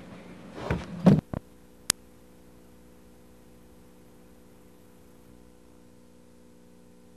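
A few thumps and a sharp click about two seconds in, then a steady low electrical hum with faint hiss from a blank stretch of VHS tape between recordings.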